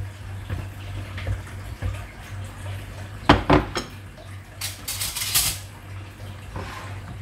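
Kitchen utensils clinking and scraping against a cooking pot, with a couple of sharper clinks about three seconds in, over a steady low hum.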